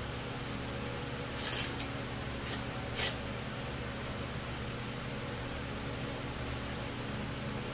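Three short hissing spray bursts: one about half a second long a little over a second in, a brief one just after, and a sharp short puff about three seconds in, over a steady low background hum.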